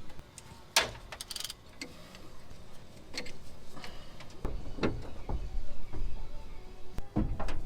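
Scattered metallic clicks and knocks of tools and parts being handled during work on a truck engine, growing into denser low rumbling and knocking in the second half.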